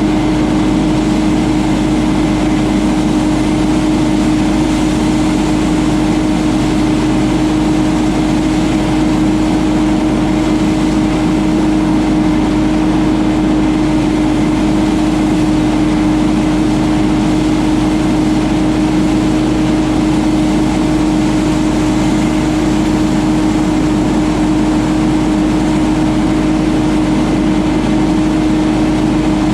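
Ferris FB2000 Hurricane stand-on debris blower running steadily, its Briggs & Stratton Vanguard engine and blower fan holding one constant pitch with a loud rush of air.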